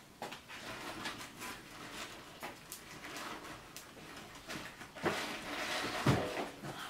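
Paper and kindling crackling as a fire catches in a wood-fired bread oven, with rustling and knocks as the fuel is pushed in. The crackle grows louder for a second or so about five seconds in, with a low knock near six seconds.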